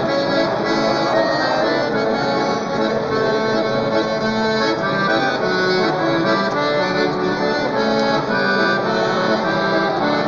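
Accordion playing an instrumental passage of a lively tune: held chords and melody notes changing quickly and steadily.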